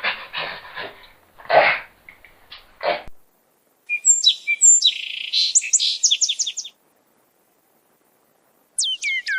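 A few short, harsh, noisy calls, then a bird chirping in a fast high trill for nearly three seconds. Near the end a string of high falling whistles begins.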